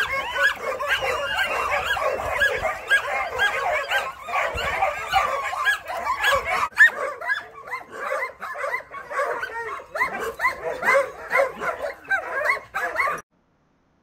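Kennel of Brittany bird dogs barking and yipping together, a dense chorus of overlapping high yaps that thins out about halfway through and stops shortly before the end.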